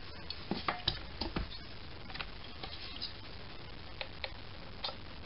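Small clicks and light taps of brass parts being handled as the crankshaft and flywheel are fitted back into a model steam engine: a quick cluster of taps in the first second and a half, then a few single clicks.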